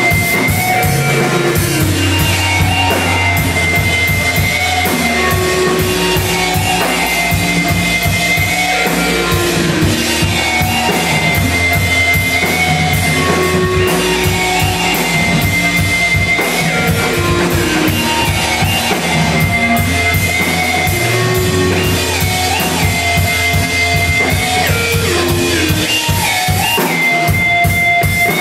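Loud live band music: a drum kit played with dense, fast hits under sustained, repeating melodic lines.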